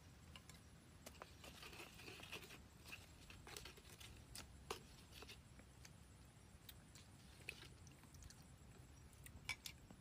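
Near silence, with faint scattered clicks and small taps from hand work with a knife, a lime and a coconut-shell sauce bowl.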